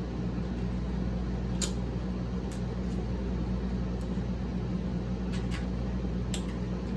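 Steady low mechanical hum of a fan or air conditioner, with a few scattered sharp clicks of someone eating: chewing and utensil sounds.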